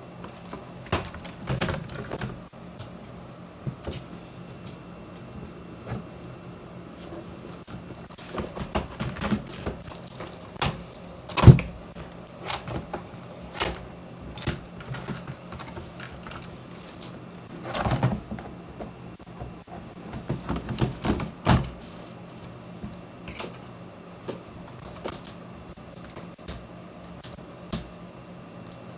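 Plastic keyboard parts being handled while the keyboard is taken apart: irregular clicks and clacks in small clusters, the sharpest a single loud click about eleven and a half seconds in.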